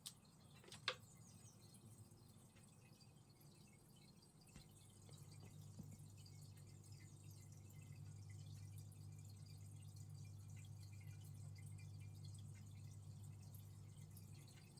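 Near silence, with one sharp click about a second in and a low steady hum from about five seconds on.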